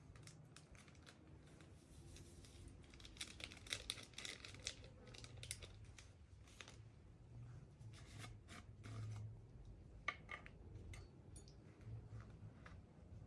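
Faint hand-work sounds of food preparation: scattered soft clicks, crackles and tearing or crinkling noises, busiest about three to five seconds in and again briefly around ten seconds.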